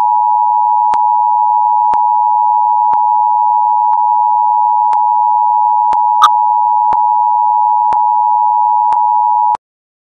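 Emergency Alert System two-tone attention signal: a loud, steady pair of tones sounded together. It cuts off suddenly near the end, with faint ticks about once a second and a short click a little after six seconds in. It is the alarm that announces an emergency alert message about to be read.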